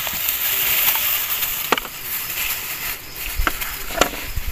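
A plastic-gloved hand rubbing marinade into raw chicken pieces in a metal tray: soft crinkling and squishing with a few sharp clicks, over a steady hiss in the background.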